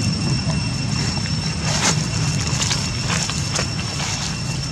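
Dry fallen leaves crackling a few times under macaques moving on the ground, over a steady low rumble and a constant high-pitched whine.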